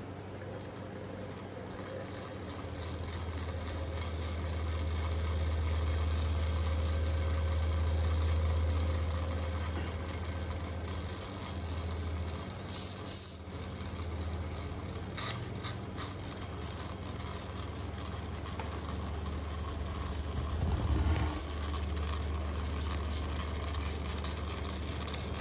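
Wilesco model steam traction engine running on steam with a steady hiss and low hum. About 13 seconds in, its steam whistle gives two short, shrill blasts, and a brief rattle follows about 21 seconds in.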